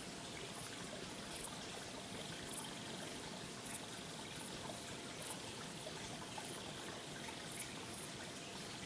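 Water trickling and lapping gently, a steady wash of sound with small splashy ticks scattered a couple of times a second.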